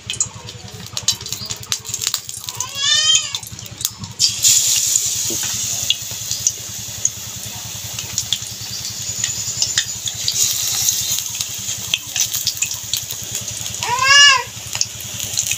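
Batter being whisked with a fork in a steel bowl, light clicking, then from about four seconds in a steady sizzle as batter-coated meat chops fry in hot oil in an iron karai. An animal call, rising then falling, comes about three seconds in and again near the end.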